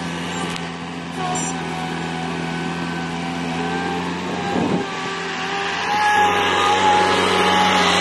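Rhino RS50-S skid steer's engine running steadily, a low hum with a higher whine over it, getting louder about six seconds in as the machine comes close.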